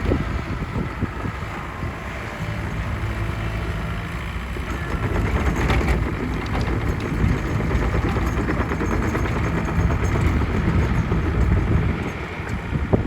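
Bobcat 435 mini excavator's diesel engine running steadily with a low rumble, getting a little louder about five seconds in.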